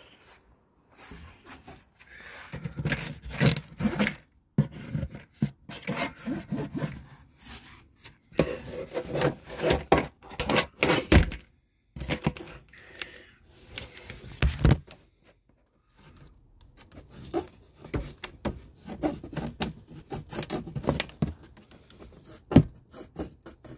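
A toilet's cardboard shipping box being handled and opened: irregular rubbing and scraping of cardboard, broken by several sharp knocks and thumps.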